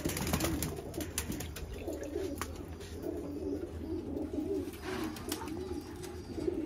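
Domestic pigeons cooing steadily throughout, several birds overlapping. Water splashes in a plastic bucket in the first second as a pigeon is dipped, and a brief flutter of wings comes about five seconds in.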